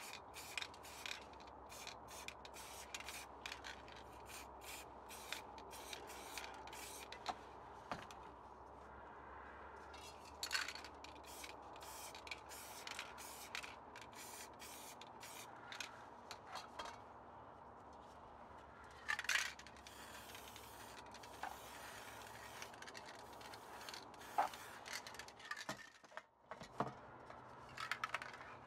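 Aerosol spray paint can hissing in many short bursts, with a few longer sprays.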